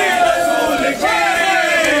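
A crowd of men chanting a noha, a mourning lament, together, loud and sustained, with many voices overlapping on a wavering, sung pitch.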